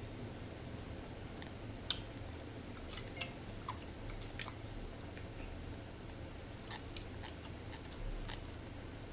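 Close-up chewing and biting of crisp raw fruit, with scattered short crunchy clicks.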